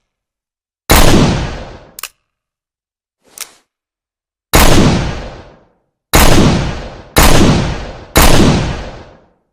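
Smith & Wesson 686 .357 Magnum revolver firing five shots: one about a second in, then after a pause four more about a second apart, each followed by a long fading echo. Two short faint clicks fall between the first and second shots.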